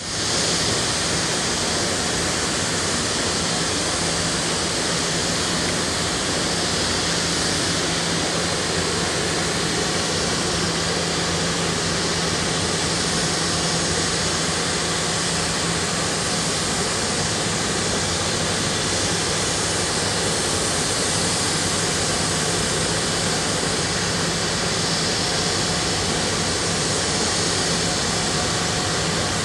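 Steady industrial roar of a paper mill: an even rushing noise with a low hum underneath.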